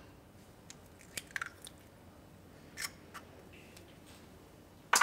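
A few faint, scattered clicks and light crunches of an eggshell being handled over a glass bowl, with one sharper click near the end.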